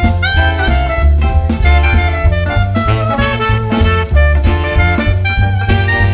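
Jazzy background music with saxophone or brass over bass and drums, with a steady beat.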